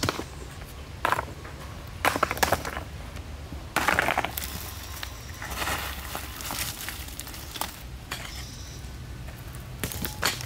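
Loose stones knocking and clinking together, and dry soil crunching and scraping as rocks are set into earth and the ground is dug with a hand tool. There is a handful of sharp knocks, the loudest about two and four seconds in, scraping and crumbling in the middle, and more strikes near the end.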